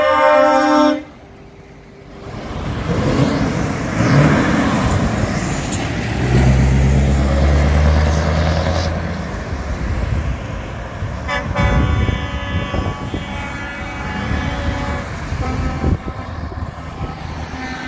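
A semi-truck's air horn blast cuts off about a second in; then trucks drive past with diesel engines running and tyre noise, one pulling away hard with a low engine drone around the middle. From about 11 seconds another horn sounds, held for several seconds.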